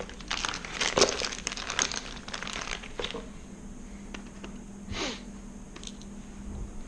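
Rustling and a quick run of small clicks and knocks from hands handling mounting hardware, busiest in the first three seconds, then a few single clicks and a brief swish, over a faint steady hum.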